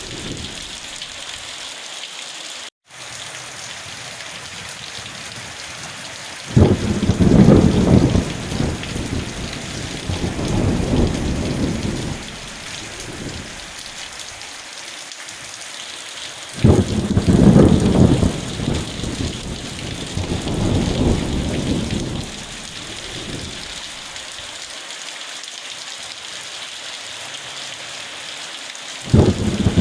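Steady rain with rolling thunder: a low rumble of several seconds begins about six seconds in, another at about sixteen seconds, and a third starts near the end. The sound drops out for an instant about three seconds in.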